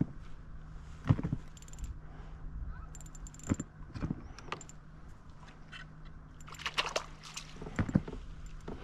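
Scattered clicks and knocks of a spinning rod and reel being handled aboard a plastic fishing kayak while a fish is reeled in, with brief runs of fine ticking. A steady low hum sits underneath.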